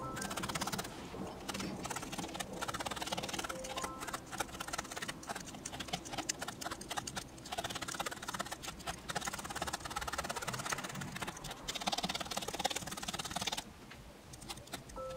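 Rapid, uneven clicking and scratching of a felting needle stabbing wool into a crocheted piece over a foam felting pad; it stops shortly before the end.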